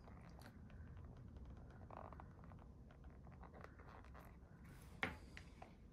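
Near silence with faint handling noise: small clicks and taps of tweezers and fingers working elastic cord on a traveler's notebook cover, with one sharper click about five seconds in.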